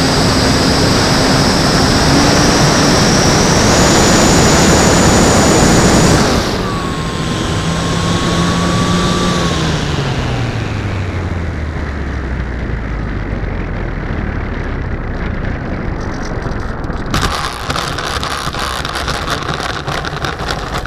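Electric motor and propeller of an E-Flite Timber RC plane, heard from a camera on the airframe: a high whine under heavy air rush that drops sharply about six seconds in as the throttle is cut, the motor tone gliding down as the propeller winds down. In the last few seconds, the landing gear rattles and crunches over rough dirt as the plane touches down and rolls.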